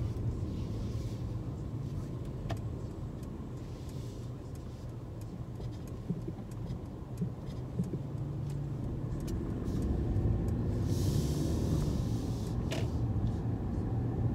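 Inside the cabin of a Mercedes-Benz C300 driving in traffic: a steady low rumble from its four-cylinder engine and tyres that grows louder about ten seconds in, with a few small clicks and a short hiss soon after the rise.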